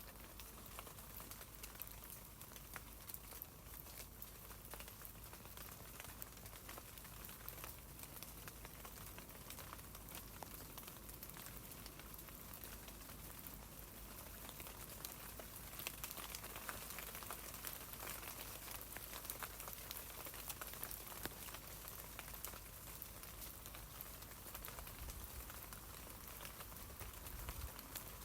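Rain falling on tree leaves: a steady patter of many small drops, a little busier from about halfway in.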